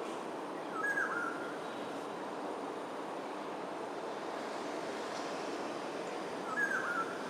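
A bird gives the same short call twice, about five and a half seconds apart, over steady background noise.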